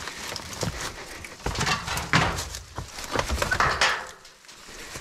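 A hand rummaging through dry leaf litter, which rustles and crackles, with scrapes and knocks from a lifted sheet of cover. The handling noise is busiest around the middle and again near four seconds in.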